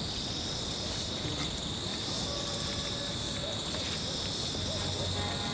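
Steady, high-pitched chorus of insects, with a higher note that swells and fades about once a second.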